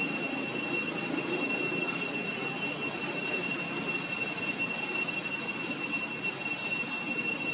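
A steady, high-pitched chorus of night insects droning without a break, over a low background hiss.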